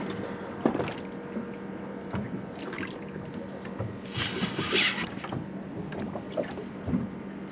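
Boat at sea: a steady low hum under wind and water noise, with a brief higher-pitched rasping sound about four seconds in.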